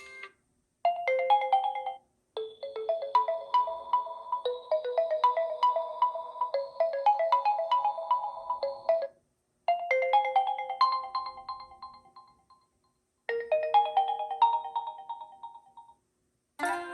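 Oppo A17 stock ringtones: short electronic melodies of quick, bright pitched notes, in four phrases with brief silences between them at about 2, 9 and 13 seconds.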